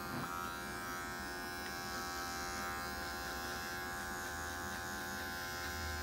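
Cordless Magic Clip hair clipper running with a steady buzz as it cuts short hair at the nape for a low fade.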